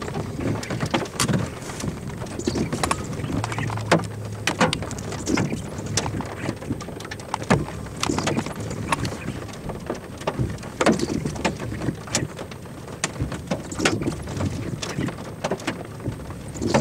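Irregular sharp taps, several a second, over a low wind rumble.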